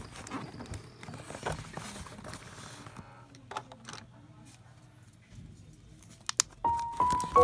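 Scattered light clicks and knocks of small objects being handled, over a faint low hum; near the end a music track starts with clear sustained notes.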